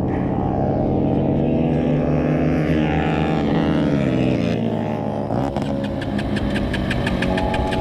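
Dirt bike engine running, its pitch rising and falling as it is revved. A rapid, even ticking comes in over it about five seconds in.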